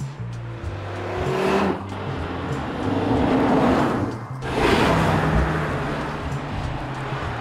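Audi RS3 Sportback's turbocharged 2.5-litre five-cylinder engine running as the car drives past. The sound swells and fades three times, with sudden cuts between the passes, over steady low notes of background music.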